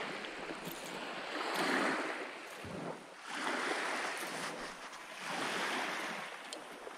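Small waves washing onto a gravel lakeshore, the wash swelling and fading every couple of seconds.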